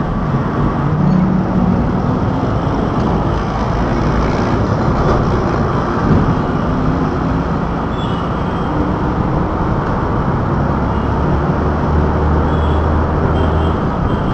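Steady engine and road noise from riding in a moving vehicle through city traffic, a constant low rumble with a faint engine hum.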